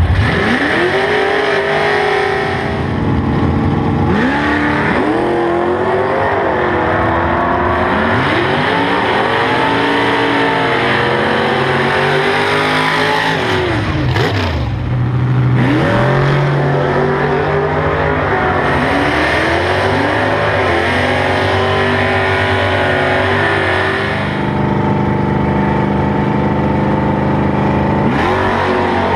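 Drag-racing cars' engines revving and accelerating hard off the line, loud throughout, the pitch sweeping up and falling back again and again.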